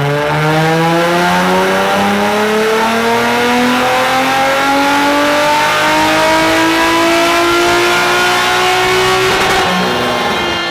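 Infiniti G35's test-piped VQ35 V6 on a chassis dyno during a wide-open-throttle tuning pull: the engine revs climb steadily in pitch for about nine seconds, then drop away as the throttle is released near the end.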